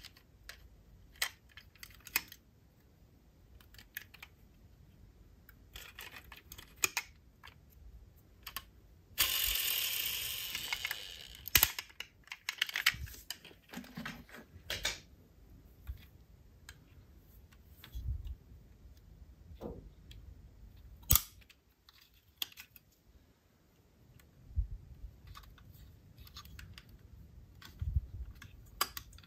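Small die-cast metal toy cars and their box being handled, making scattered light clicks and taps. About nine seconds in there is a fading noisy stretch of about two seconds, and a single sharp click about twenty-one seconds in.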